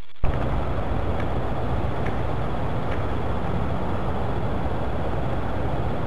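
Steady low rumbling noise of an outdoor camcorder recording, even throughout, with a few faint ticks in the first three seconds.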